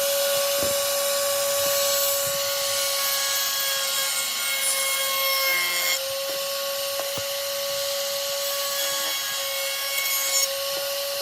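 A power tool abrading the face of a wooden 2x4, a rubbing, scraping sound over a steady motor hum. It eases slightly about six seconds in.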